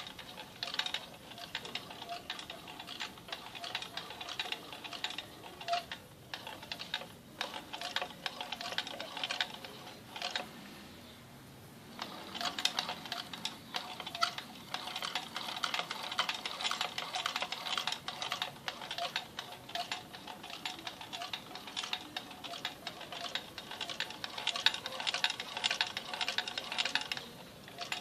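Mercswiss sewing machine running, stitching with a fast steady ticking; it stops for about a second some ten seconds in, then starts again.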